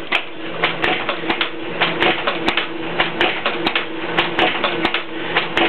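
Elrod Model F stripcaster running, with rhythmic thumping knocks about four a second over a steady hum. The thumping comes from the puller drawing the solidified 12-point slug strip out of the water-cooled mold in repeated bites, which takes a lot of force.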